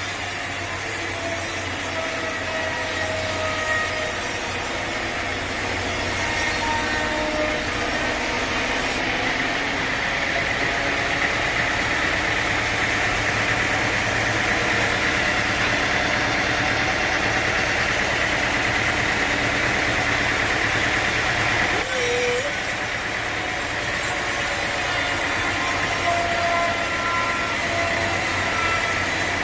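Sawmill machinery running steadily with a constant engine drone. Its sound shifts about nine seconds in, when the highest hiss drops away, and shifts back about twenty-two seconds in.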